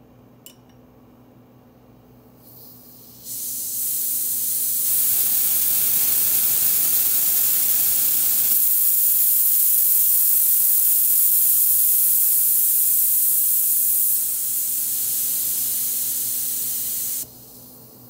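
SodaStream CO2 canister venting through its valve, the valve pin held down with a metal rod: a light click, then a loud high hiss of escaping gas that starts about three seconds in, grows stronger, and cuts off suddenly near the end.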